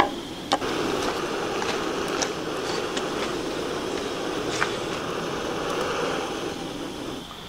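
Small canister backpacking stove burning steadily under a pot of water that is heating toward the boil, with a few light clicks over it. The rushing stops shortly before the end as the stove's valve is turned off.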